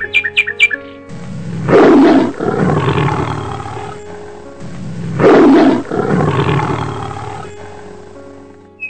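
A tiger roaring twice, each roar about three seconds long, loudest at its onset and then fading out, over background music.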